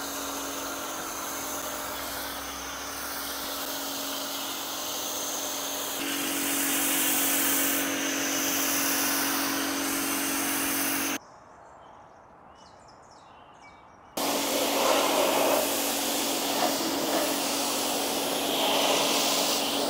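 Pressure washer running, a steady motor hum under the hiss of the water and foam spray. It drops away for about three seconds in the middle, then starts again.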